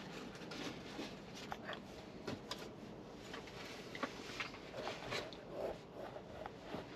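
Quiet cabin of a stationary car: a low steady hum under small, irregular clicks and rustles from hands moving about the dashboard controls and touchscreen.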